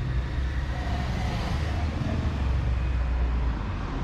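Busy-street traffic noise, with a motor vehicle's engine running close by as a steady low hum.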